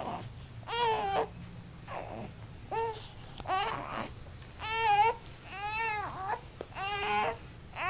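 A five-week-old baby's short fussing cries, about six in a row, each under a second and arching up and down in pitch.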